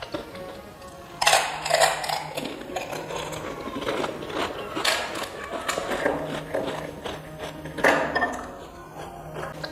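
Crisp panipuri (fuchka) shells being bitten and chewed close to the microphone: crackly crunching with small clicks, and two louder crunches, one about a second in and one near the end.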